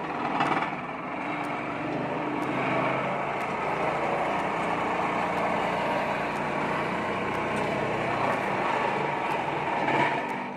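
Excavator-mounted vibratory hammer test-run after a repair: a loud, steady, harsh mechanical noise that cuts off near the end.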